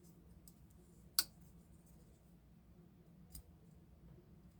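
Folding pocket knife being flicked open by the blade: a single sharp click about a second in as the blade snaps open and locks, then a fainter click a couple of seconds later.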